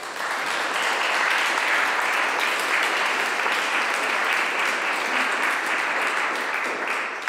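Audience applauding at the end of a keynote talk, steady clapping for about seven seconds that fades away near the end.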